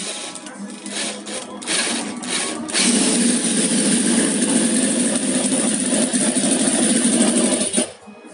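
Miniature four-cylinder boxer model engine being cranked by an electric drill and catching in a few short stuttering bursts. It then runs steadily at high speed for about five seconds and cuts out suddenly near the end. This is its first start.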